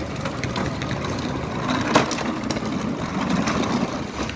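Hard plastic wheels of a toddler's ride-on toy motorbike rolling over rough stone paving, a crackling, grinding rattle with a sharper click about two seconds in.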